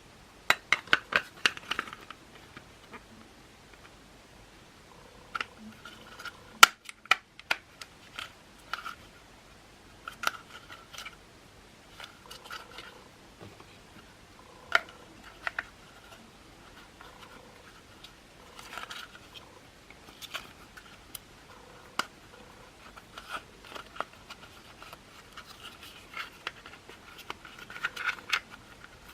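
Scattered clicks, taps and short squeaks of a cordless stick vacuum's plastic parts and screws being handled during disassembly, irregular with quick clusters of clicks.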